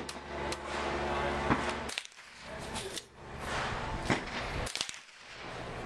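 Rifle shots at a shooting range: several sharp reports spaced irregularly, the loudest about one and a half and four seconds in.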